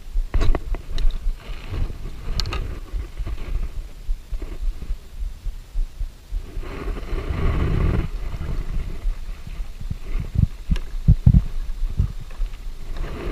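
Handling noise in a molded plastic fishing kayak: scattered knocks and clicks, a second or so of rustling about seven seconds in, and a few heavy low thumps near the end.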